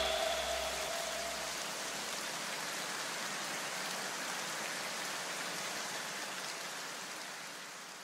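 A steady, even hiss like rain, left over after the electronic dance track cuts out, fading slowly away; the last low notes of the music die out in the first two seconds.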